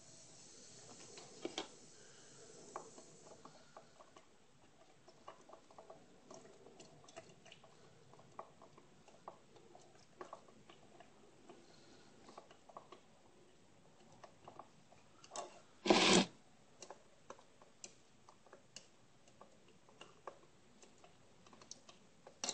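Sodium metabisulfite (Stump Out) granules hissing as they pour into a glass jar of gold solution, then a plastic knife stirring in the jar with light, irregular clicks and taps against the glass. A short, louder burst of noise comes about sixteen seconds in.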